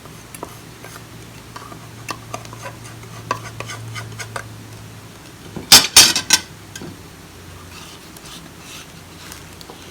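Small scrapes and taps of a utensil against the container of a coffee and spice grinder as ground pineapple powder is worked out of it, with a louder clatter of several quick knocks about six seconds in.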